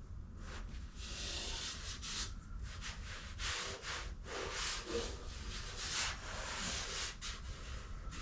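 Coarse sandpaper rasping over body filler on car bodywork in irregular hand strokes, some short and some up to a second long.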